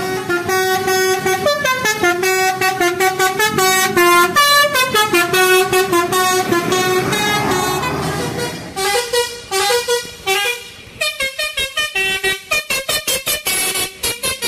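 Telolet horn of an odong-odong tourist mini train playing a tune: held notes stepping up and down, then, after a short lull, quick short toots near the end.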